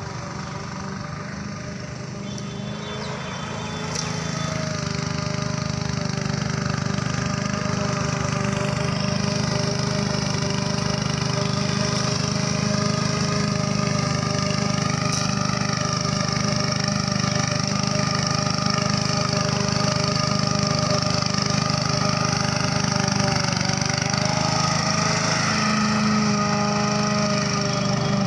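Walk-behind lawn mower's engine running steadily while the mower is pushed across grass, growing louder about four seconds in and then holding an even note.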